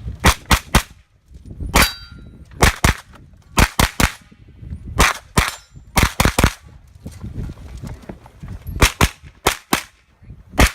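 JP Rifles GMR-15 9mm pistol-caliber carbine firing quick pairs and short strings of shots, with short pauses between strings. One shot about two seconds in is followed by a brief metallic ring, as from a steel target being hit.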